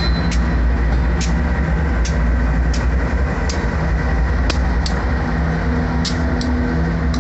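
Several diesel freight locomotives passing close by, their engines running with a steady low drone. Sharp clicks from the wheels on the track come every half second to a second.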